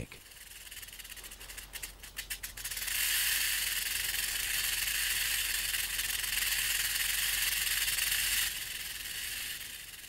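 Rattlesnake shaking its tail rattle as a warning: a few separate dry clicks, then about three seconds in a steady, high, hissing buzz that lasts about five seconds and stops abruptly.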